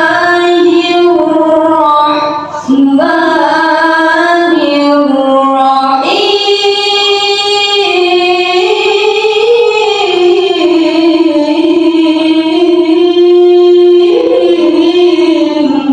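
A girl's voice reciting the Quran in melodic tilawah style through a microphone. She holds long, ornamented notes that step and slide between pitches, takes a brief breath about two and a half seconds in, and ends the phrase near the close.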